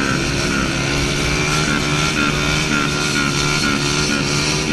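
Small single-cylinder pit bike engines running steadily, their pitch wavering slightly up and down.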